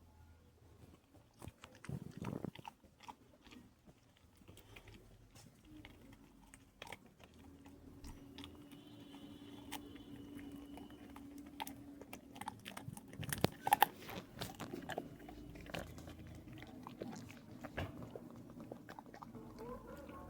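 A pet animal cracking and chewing walnuts: irregular crunches and sharp cracks with chewing between them, the loudest crack about 13 seconds in. A faint steady hum runs underneath from about halfway through.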